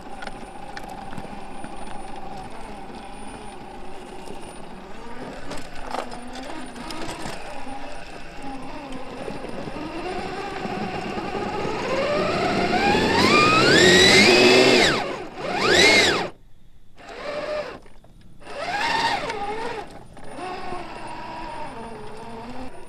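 Electric motor and gear drivetrain of 1/10-scale RC crawlers whining under throttle. The pitch climbs steadily over several seconds as the motor speeds up, peaks and cuts off suddenly, then two shorter bursts of throttle follow.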